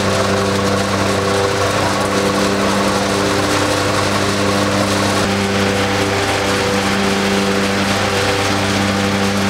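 Truck-mounted hazelnut husking machine running steadily: a continuous engine-like hum under an even hiss.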